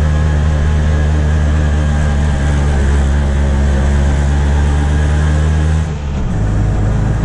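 Auto-rickshaw engine running steadily while the rickshaw drives along, heard from the rear seat. Its note changes about six seconds in.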